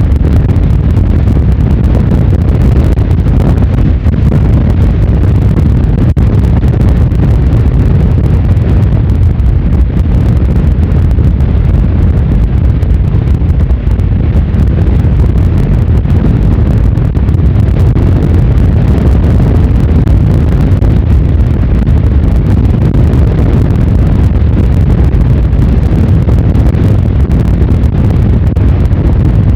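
Strong gale-force wind buffeting the microphone: a loud, steady low rumble.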